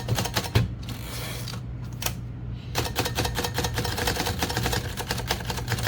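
Remington Rand manual typewriter being typed on: its typebars strike the platen in sharp clacks, a few at first, then a fast run from about three seconds in.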